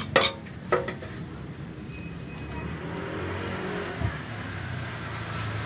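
Short metallic clinks of hand tools working a flywheel puller on a scooter's flywheel: two within the first second and one about four seconds in, over a steady low rumble.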